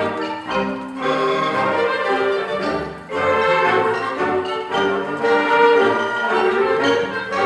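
Orchestral-style music with brass carrying the tune over a steady accompaniment.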